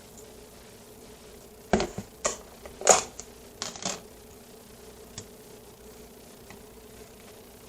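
A quick run of sharp clicks and knocks, about half a dozen within two seconds, over a steady low hum.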